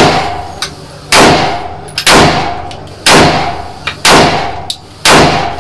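30-bore (7.62×25mm Tokarev) pistol fired six single shots, evenly about a second apart, each shot ringing off and dying away over most of a second.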